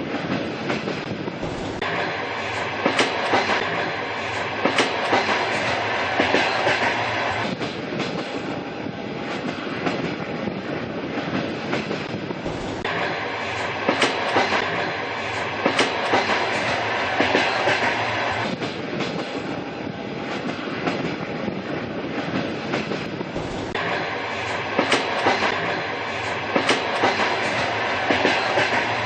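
Train running on rails: a steady rumble with clickety-clack of the wheels over rail joints, coming in clusters of sharp clicks. The same louder stretch comes back about every eleven seconds.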